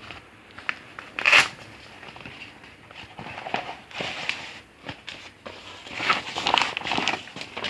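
Cricket gear being handled as a bat is brought out: irregular rustling and crinkling, with a sharp knock about a second in and louder bursts of rustling later.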